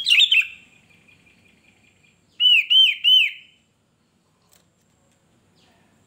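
Sooty-headed bulbul (kutilang) calling: a quick burst of sharp chirps right at the start, then three loud whistled notes, each rising and falling, about two and a half seconds in.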